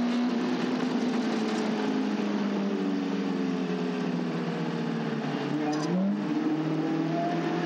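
Caterham race car engine heard onboard, running hard at high revs with the pitch drifting as the throttle changes. About six seconds in it breaks briefly and sweeps back up, as in a gear change.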